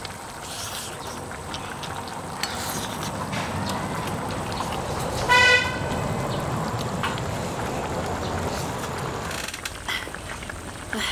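A vehicle passing with a steady rumble that swells and fades, and a single short horn toot about five seconds in.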